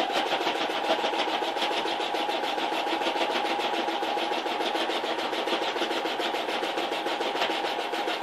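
Electric sewing machine running steadily, the needle stitching at a fast, even rhythm of about ten ticks a second. It is sewing a zigzag stitch through layers of cotton fabric.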